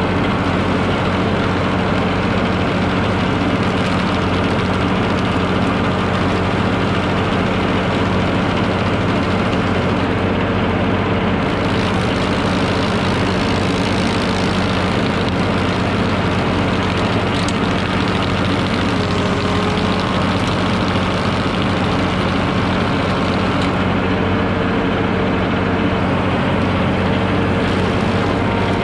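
Tractor engine running steadily under load, driving a Mech Maxx TSG61 PTO stump grinder whose toothed wheel is cutting into a stump. The grinding hiss of chips being thrown grows stronger for a stretch in the middle.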